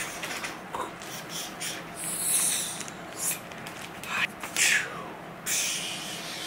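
A mailing package being opened by hand: rustling and tearing of the packaging, with several louder scraping swishes about two seconds in and again around four to five seconds in.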